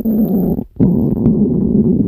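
Stomach growling: a loud, drawn-out rumble that breaks off briefly about two-thirds of a second in, then starts up again.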